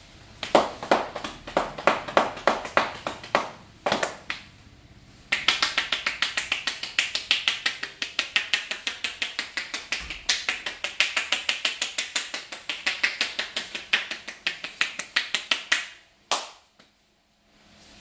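Hands rapidly slapping and tapping on a man's head and scalp in an Indian head massage, a run of sharp snapping smacks at about five a second, broken by a short pause about four seconds in and ending with one last snap near the end.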